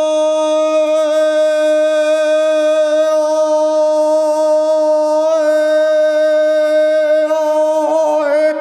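A man's throat singing: one long, steady held drone with strong ringing overtones above it, wavering briefly a couple of times and breaking off near the end. It echoes off the walls of a concrete bunker.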